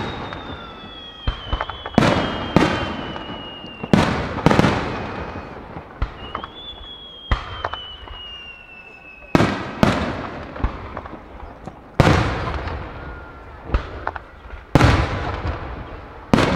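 Aerial firework shells bursting in a rapid series of sharp bangs, one every second or so, each ringing out afterward. Twice a long whistle slowly falls in pitch behind the bangs.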